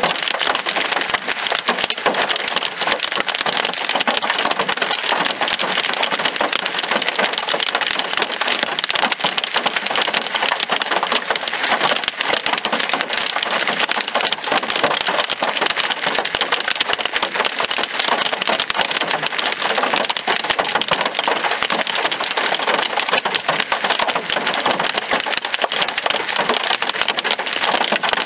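Large hailstones and heavy rain pelting down. A dense, unbroken clatter of hard stone impacts over the hiss of the rain.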